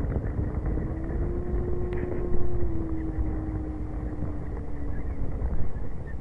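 A distant engine drones steadily over a low rumble of wind, its pitch rising slightly, then falling and fading out near the end.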